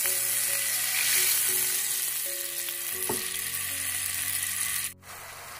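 Hot oil and spices in a wok sizzling hard just after water has been poured in. The hiss eases a little, then drops suddenly to a quieter sizzle about five seconds in.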